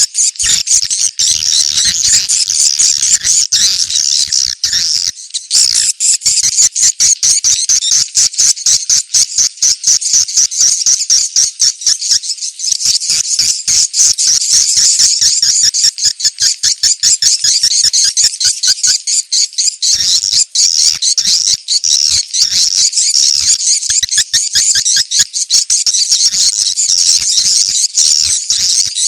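Swiftlet lure call: rapid, unbroken high-pitched chirping and twittering of edible-nest swiftlets (walet), the 'ceklok' location-check call played to draw swiftlets to a site for a swiftlet house.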